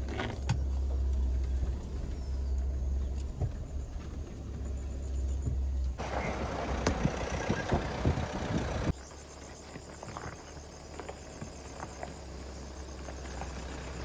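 Mahindra Thar SUV driving over a rough track: a steady low engine and road rumble. About six seconds in it gives way to louder rushing tyre-on-road noise with small ticks of grit. This cuts off suddenly after about three seconds and leaves a quieter low rumble.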